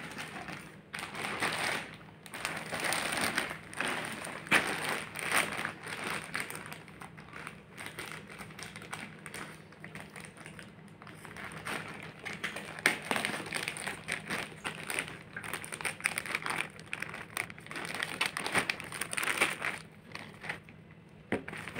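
Clear plastic packaging crinkling and rustling as it is handled and cut open with scissors, with scattered sharp snips and taps.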